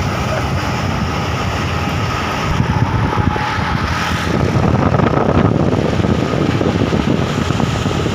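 Truck on the move: a steady rumble of engine and road noise.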